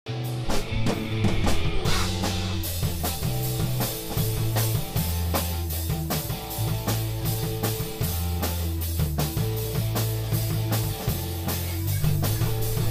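A rock band playing live: electric guitars, bass guitar and drum kit together, with a steady drum beat over bass notes that change every second or so.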